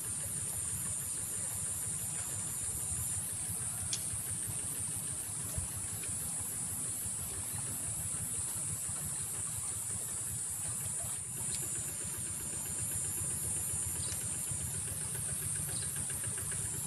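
A high insect chorus trilling in an even, pulsing rhythm over a steady low rumble like a distant engine running, with a couple of faint clicks.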